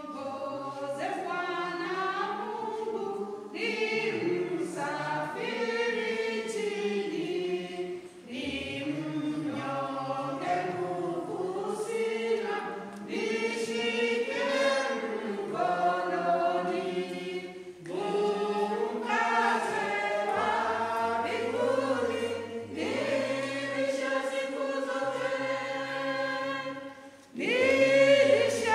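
A choir singing a hymn together, in phrases with short breaks between them.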